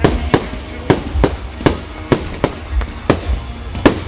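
Aerial firework shells bursting in rapid succession, a sharp bang about every third of a second, over a low rumble.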